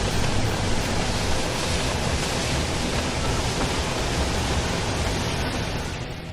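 Blizzard wind blowing hard across the microphone: a steady rushing noise with irregular low buffeting, easing slightly near the end.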